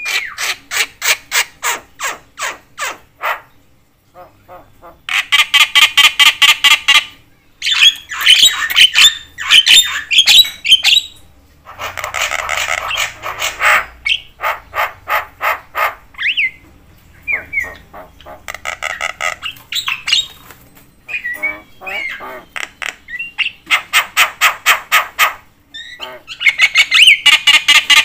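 Javan myna (jalak kebo) calling loudly and chattily: runs of rapidly repeated harsh notes, several a second, in bursts of one to three seconds with short pauses between.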